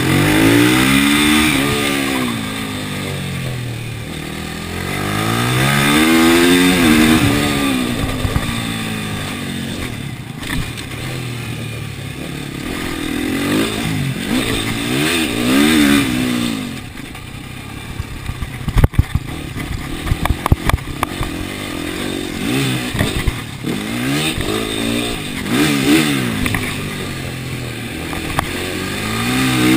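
TM supermoto motorcycle engine heard from the rider's helmet camera, revving up hard and dropping off again and again as the bike accelerates out of corners and slows into them. A burst of sharp clicks and knocks comes a little past the middle.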